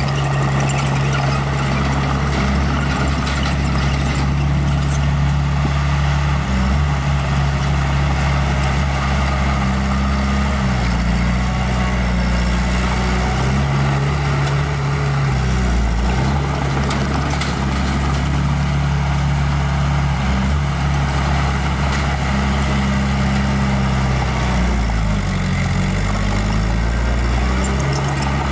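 Small bulldozer's diesel engine running steadily under load, its pitch shifting several times as the machine works, with a brief dip and recovery near the end.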